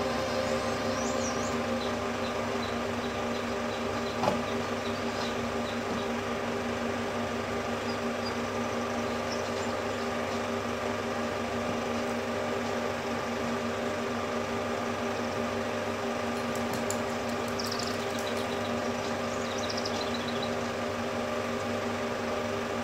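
35 mm film projector running: a steady mechanical whir and hum, with one short click about four seconds in.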